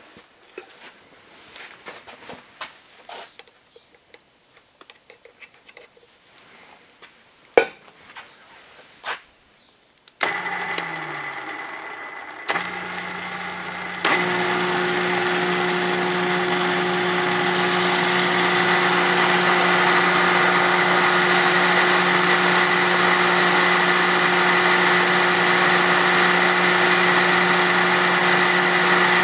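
A few light clicks and knocks, with one sharp knock near the middle. Then, about ten seconds in, the spindle motor of a seat and guide machine starts up and gets louder in two steps. It runs steadily on slow speed as its cutter machines the outside of a valve guide for a positive valve seal.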